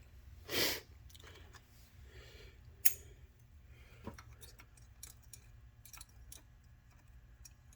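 Hand tools working a broken helicoil tang loose from a threaded hole: a short noisy burst about half a second in, one sharp metallic tap near the middle, then scattered small clicks.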